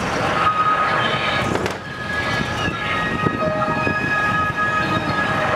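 Large diesel trucks idling, a low steady rumble, with several steady high tones at different pitches sounding over them and changing about halfway through.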